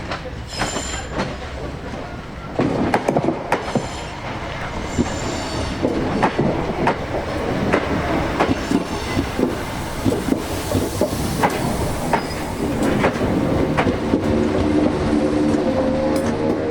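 Class 321 electric multiple unit on the move, its wheels clicking and knocking over rail joints and pointwork, with brief high wheel squeals. A rising tone from the traction motors comes in near the end.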